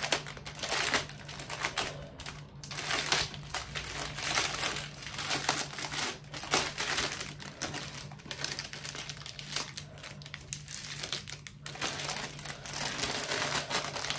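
Clear plastic bag crinkling in irregular rustles as it is handled and turned over, with packets of diamond-painting drills shifting inside.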